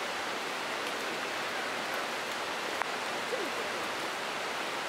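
Steady rushing of running water, an even hiss that does not change, with a single faint click about three seconds in.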